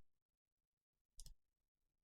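Near silence, with one short click from the computer about a second in, made as two strokes close together.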